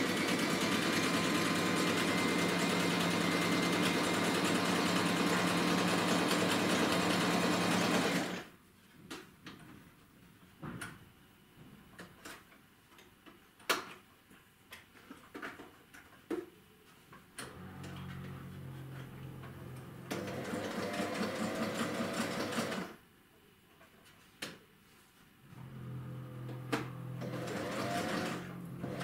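White Singer electric sewing machine stitching fabric at a fast, steady run for about eight seconds, then stopping. Scattered clicks and handling noises follow. The machine then runs twice more, quieter and slower, in short spells of a few seconds.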